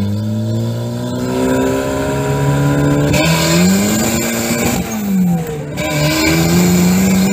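Turbocharged Mazda Miata 1.6-litre B6 DOHC four-cylinder pulling hard through the gears, heard from inside the open car. The revs climb, drop suddenly at an upshift about three seconds in and climb again. About five seconds in they fall away, then pick up and hold steady.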